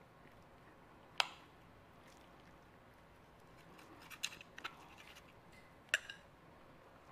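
Metal table knife clinking and scraping against a plate while cutting a fried egg: one sharp clink about a second in, a quick cluster of clicks around four seconds, and another ringing clink near the end.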